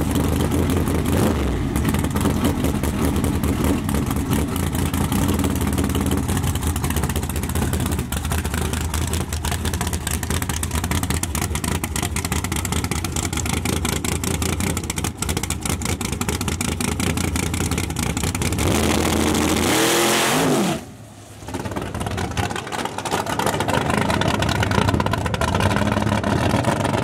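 Big-block V8 of a third-generation Chevrolet Camaro drag car idling with a choppy lope at the starting line, then launching hard about twenty seconds in and accelerating away down the track.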